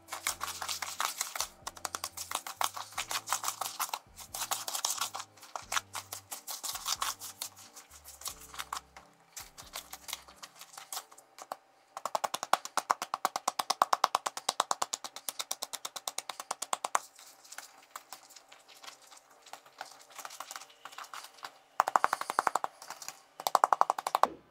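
A spatula stirring a thick butter, sugar and egg mixture in a mixing bowl: rapid clicking and scraping strokes that stop briefly now and then. Background music with a bass line plays under it for the first half.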